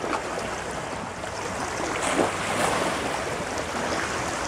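Steady rushing noise with no clear pitch, growing slightly louder over the first two seconds.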